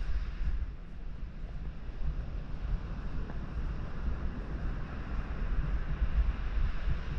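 Wind buffeting the microphone: a low rumbling noise that gusts up and down.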